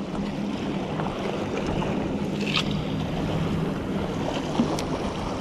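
Sea water washing and splashing against the jetty rocks, with wind buffeting the microphone; a faint low steady hum runs underneath.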